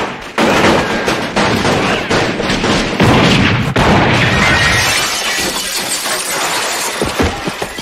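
A volley of pistol gunshots, then a shop-front glass pane shattering, the breaking glass rattling on for a few seconds.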